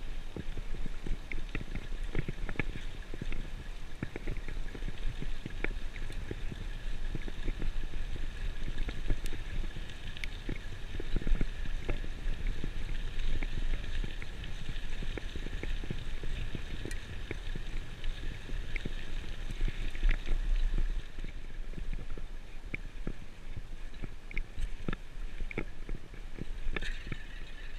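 Mountain bike rolling over a packed dirt forest track: steady low tyre rumble with many small clicks and rattles from the bike.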